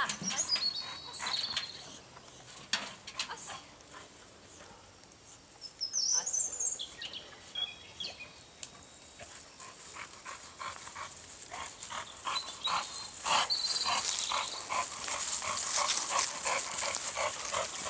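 A wheelbarrow carrying a boxer dog being pushed over grass, its wheel and frame rattling and clicking. The rattling grows denser and louder over the last several seconds as it comes closer. A few brief high squeaks come now and then.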